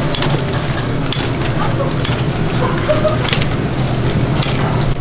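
Kitchen scissors snipping through crisp-fried pork ribs, several sharp irregular snips, over the steady sizzle of a deep fryer and a low hum.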